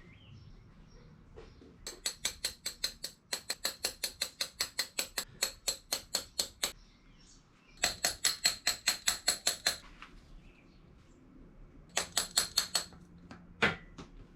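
Rapid, light metallic taps, about six a second, driving a new camshaft oil seal flush into a Miata engine with a tapping tool. The taps come in four runs separated by short pauses, and two single harder knocks follow near the end.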